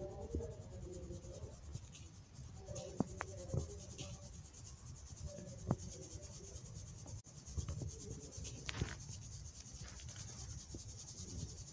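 Fingers rubbing dyed baking soda powder and glitter through a fine metal mesh sieve: a soft gritty scratching, with a few sharp light clicks.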